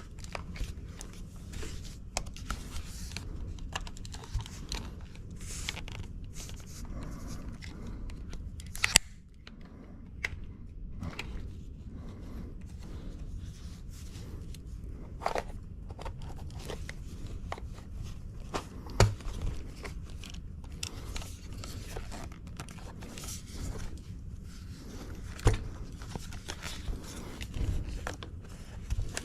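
Hands prying apart the plastic trim of an aftermarket yoke steering wheel: irregular clicks, scrapes and crinkling, with a few sharper snaps, the loudest about a third of the way in, about two-thirds in and near the end.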